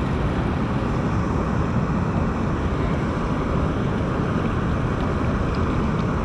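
Steady rush of water pouring out of a concrete dam spillway outlet into a pool, an even, unbroken noise with a strong low rumble.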